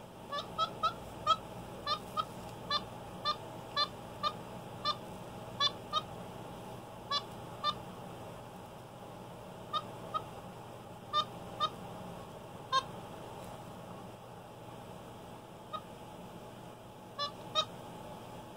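Capuchin monkey giving short, squeaky pitched calls, about twenty in all, in three runs with pauses between.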